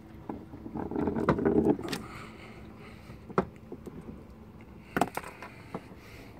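Rustling and scattered sharp clicks from a landing net being handled on a boat deck, with a cuttlefish and a squid jig inside it. The rustling is densest about a second in, and there is a quick double click about five seconds in.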